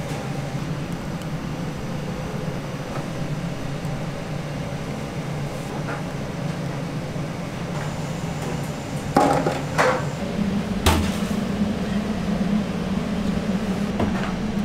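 Steady low machine hum of a commercial kitchen, with three sharp metallic clinks of stainless steel pans and a strainer between about nine and eleven seconds in.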